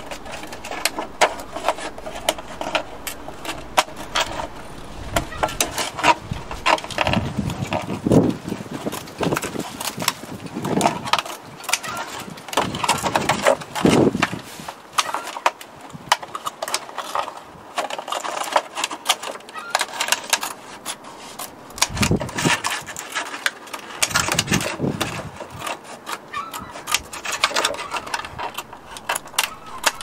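Scissors snipping and cutting through a thin plastic milk bottle, with the plastic crackling and crinkling as it is cut and bent. Several dull knocks as the bottle is handled against the table.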